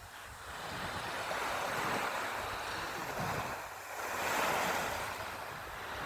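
Sea waves washing in, the surf noise swelling twice.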